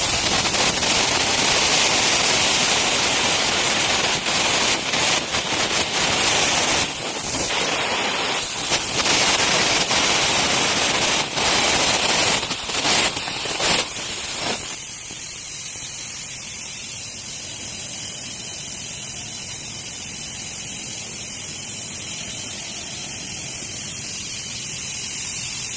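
Electric arc welding: a loud, dense crackle and sizzle from the arc, broken by a few short pauses. It stops a little over halfway through, leaving a quieter steady hiss.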